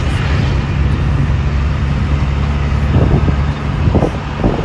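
Truck engine running with road noise, heard from inside the cab while driving, with a few short knocks about three and four seconds in.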